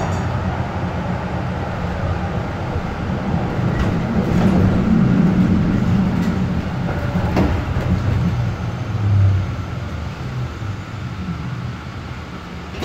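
Moderus Beta MF24AC tram running along the track, heard from inside the passenger saloon: a steady rumble of wheels on rails with a low drive hum, and a single sharp knock about seven seconds in. It gets a little quieter near the end.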